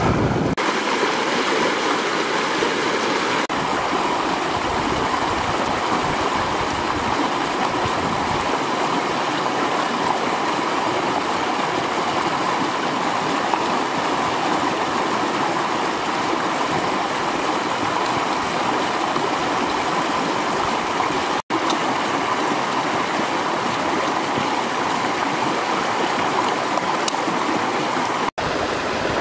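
Shallow river running over rocks in small rapids: a steady rush of water, broken by two brief gaps in the second half.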